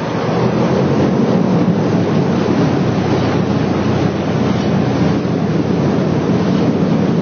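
Engine and propeller noise of a 1955-built airplane heard from inside the cockpit, a loud, steady rushing drone that builds slightly in the first second as the plane rolls along the runway.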